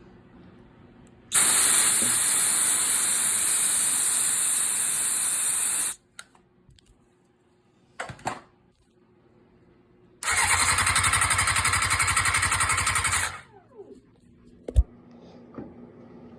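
Can of starter fluid sprayed in a long hiss for about four seconds. A few seconds later the starter motor cranks the engine for about three seconds in a rapid pulsing churn, and the engine does not catch even with starter fluid in it.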